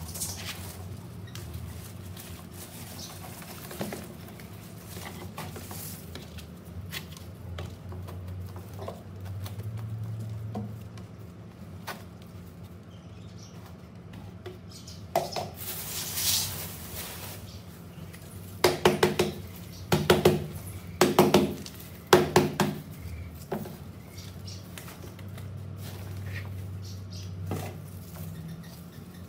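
Potting soil and a plastic planter box being handled by gloved hands: scattered rustles, scrapes and light knocks of plastic over a low steady hum. About two-thirds of the way through, four loud pitched squeaks come about a second apart.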